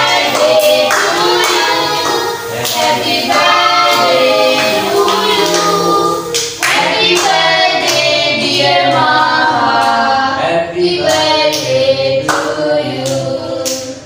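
A family of adults and children singing a birthday song together, with hands clapping along.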